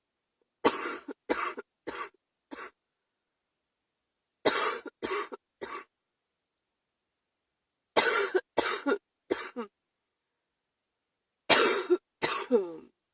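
A person with a chest cold coughing in four bouts of short, harsh coughs: four, then three, then four, then two, with pauses of about two seconds between bouts.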